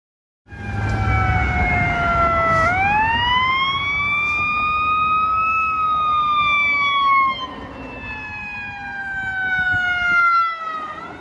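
Fire engine's siren wailing, its pitch rising and then falling slowly in a long sweep, with a low rumble of traffic and engines under it. It starts abruptly about half a second in and is loudest in the first seven seconds.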